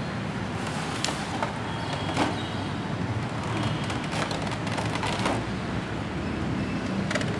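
Clear plastic blister tray and packaging being handled, giving scattered light plastic clicks and crinkles over a steady background rumble.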